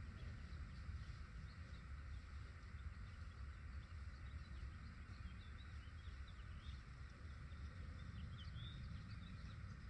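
Outdoor ambience: scattered small bird chirps over a steady low rumble.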